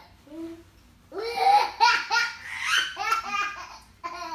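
A child laughing in a run of short bursts, starting about a second in.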